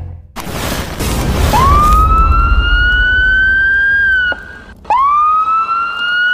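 Intro sound effect: a deep rumble, then two siren-like wails that each rise quickly, hold for about two and a half seconds and drop away at the end.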